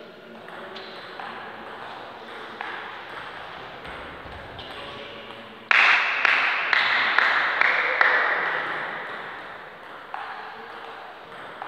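Table tennis ball clicking off the bats and table in a rally, echoing in a large gym hall. A few faint taps come first, then about halfway through six sharp, loud hits about half a second apart, followed by a ringing echo that fades away.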